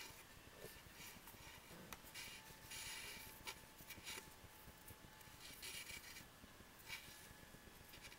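Faint rubbing and swishing of embroidery floss and fingers while a friendship-bracelet backward knot is tied and pulled up, with a few soft clicks.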